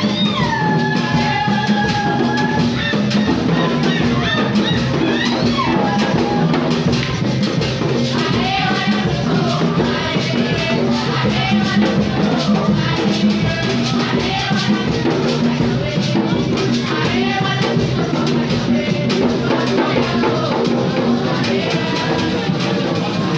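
Live African hand-drum ensemble, congas and djembe-style drums, playing a steady, driving rhythm, with voices singing over it; a long falling sung note stands out near the start.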